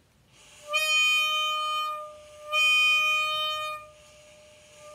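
Toy saxophone blown on one steady, reedy note: two loud blasts of about a second and a half each at the same pitch, softer in between and trailing off, with a new blast starting right at the end. It is pretty loud.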